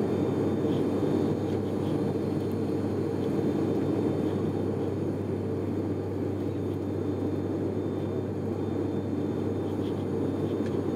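Steady cabin drone of an ATR 72-500 turboprop's engines and propellers during the climb, heard from inside the passenger cabin: a constant low hum under an even rushing noise, unchanging throughout.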